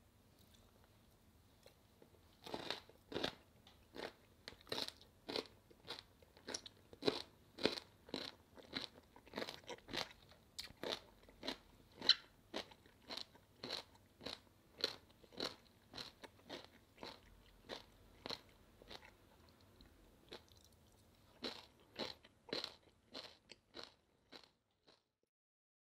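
Crunchy chewing of seokbakji, chunky radish kimchi made from crisp, firm radish: close, even crunches about two a second, breaking off briefly for a moment and then resuming before stopping shortly before the end.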